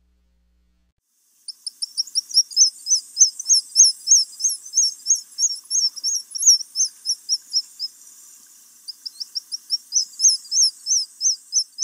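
A bird's high, rapid chirps, about four a second, starting about a second and a half in; they thin out briefly near the eight-second mark, then carry on.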